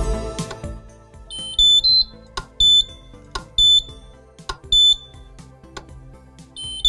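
Electronic beeper in the Häfele Free Swing E-Drive lift-up fitting's motor unit, sounding as its programming button is pressed. It gives a rising three-note chirp about a second and a half in, then three single high beeps about a second apart, and another rising three-note chirp at the very end. The beeps acknowledge the button presses that step through the programming menu to select and confirm a new reference run.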